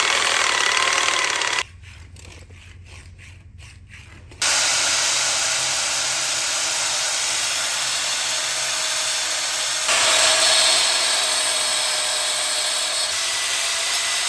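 Reciprocating saw cutting through rusted, seized exhaust manifold bolts, running in long steady stretches. About two seconds in, a short quieter spell of light knocks breaks the cutting.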